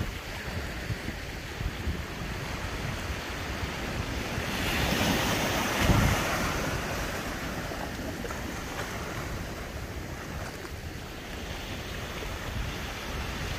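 Surf washing in around the shallows, one wave swelling to a loud rush about six seconds in and then drawing back. Wind rumbles on the microphone throughout.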